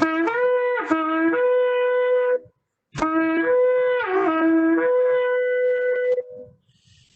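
Shofar blown in two long blasts, about three seconds each with a short gap between. Each blast steps between a lower and a higher note, with a brief wavering break partway through.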